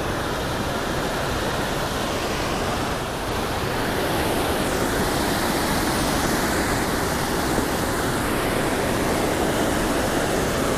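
Steady rushing roar of river water pouring over a low-head dam.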